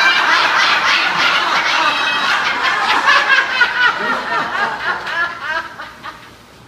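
A large group laughing together in a laughter yoga exercise, many voices at once, loud and dense; the laughter dies away near the end.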